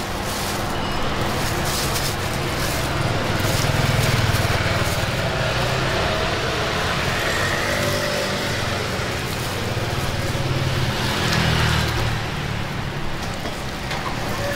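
Steady rumble of street traffic that swells and fades as vehicles pass, with light clinks of ceramic bowls and utensils.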